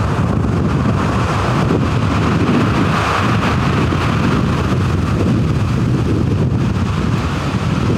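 Loud storm wind buffeting the microphone over rough surf breaking and washing against the shore.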